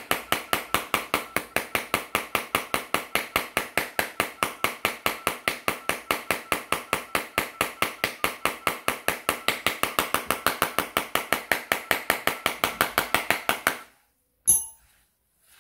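Rapid, even knocking of a hard object, about six sharp strikes a second, each with a short ring. It stops suddenly near the end, and one separate sharp click follows.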